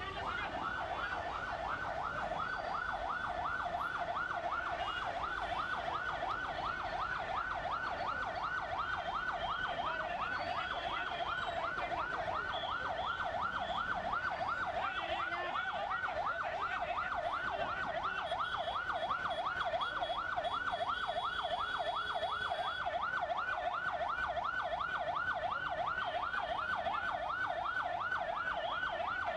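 Electronic siren wailing in a fast, even up-and-down sweep, about three cycles a second, without a break.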